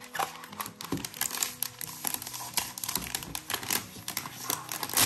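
A thin protective wrapping sheet crinkling irregularly as it is handled and peeled off a new keyboard during unboxing.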